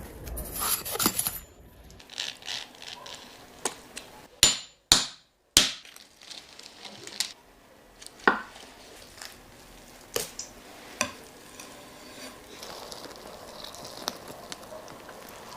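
Knife chopping and cracking through cooked turkey: sharp crunches and knocks on a board, with three loud strikes close together about five seconds in and scattered single strikes after.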